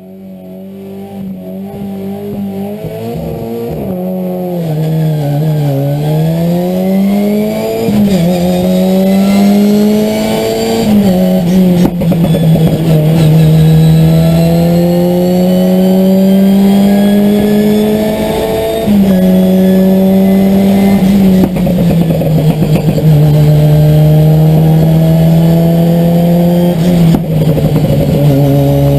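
Ford Escort Cosworth rally car's turbocharged four-cylinder engine racing at full throttle, heard from inside the cabin. The pitch climbs through each gear and drops sharply at each of several gear changes. The sound fades in over the first several seconds.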